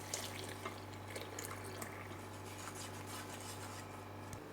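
Milk being poured slowly into a saucepan of dry ingredients: a faint trickle with a few small drips and ticks, over a steady low hum.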